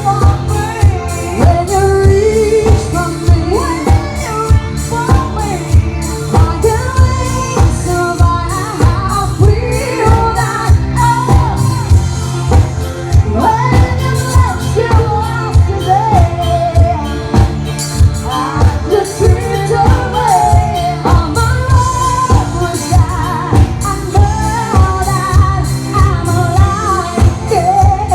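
A band playing a pop song, with singing over a steady, driving drum beat and bass.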